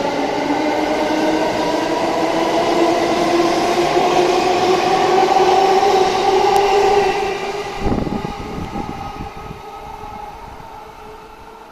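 E231 series electric commuter train's traction motors whining in several tones that rise slowly in pitch as the train gathers speed, then fading away over the last few seconds, with a low thump about eight seconds in.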